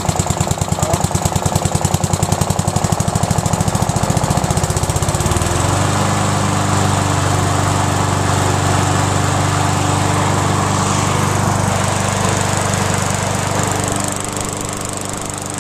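Old Montgomery Ward lawnmower's small engine running on its stock muffler just after a cold start. It runs unevenly with a rapid pulsing for about the first five seconds, then settles into a steady, smoother run, dropping slightly in level near the end.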